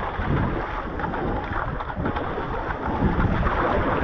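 Wind buffeting the microphone over water rushing steadily along the hull of a surfski gliding across an ocean swell, with no paddle strokes.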